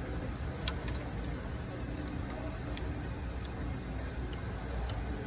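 Ratchet wrench clicking in short, uneven bursts as a pusher bolt is run into the rear freeze plug hole of a Cummins block. The clicks sit over a steady low hum, and a sharp click a little under a second in is the loudest sound.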